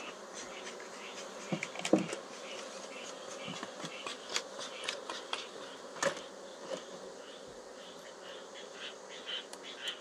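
Swarm of honeybees buzzing steadily around opened hives, with a couple of sharp knocks about two and six seconds in.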